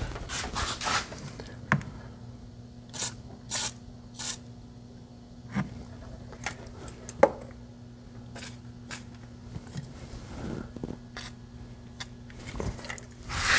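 Scattered small clicks, scrapes and rustles of handheld handling and moving about, over a faint steady hum.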